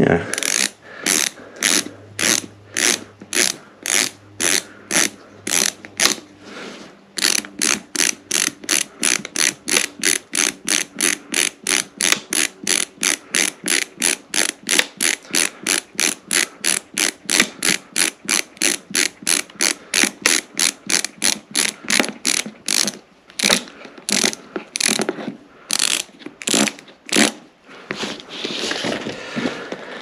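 BOA lacing dial on a snowboard boot being turned by hand, its ratchet clicking steadily as it winds the newly replaced lace cable in. The clicks come about two a second at first, speed up to about three a second after several seconds, and turn irregular near the end.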